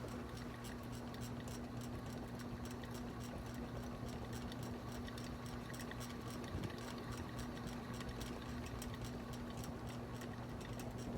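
Harbor Breeze Armitage ceiling fan running on high, its motor giving a steady low electrical hum, the hum that makes the walls of the room hum. A fast, faint ticking runs along with it.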